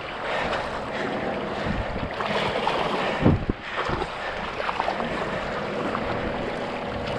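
Wind buffeting the microphone over seawater sloshing and splashing against the side of a boat, with two heavier thumps about three and four seconds in.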